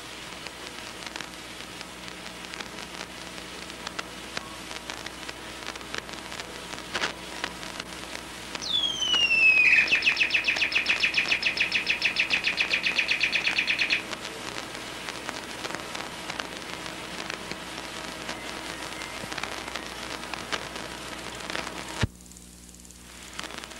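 Steady hiss and faint crackle of an old home-video soundtrack. About nine seconds in, a high whistle falls sharply and runs into a rapid, high-pitched trill, the loudest sound, which stops abruptly about five seconds later. Near the end the sound cuts to a quieter hiss.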